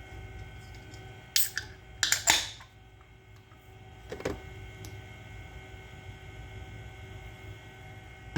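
Steady electrical hum of a running Macintosh SE, with a few short noisy handling sounds about a second and a half and two seconds in, and a brief click a little after four seconds.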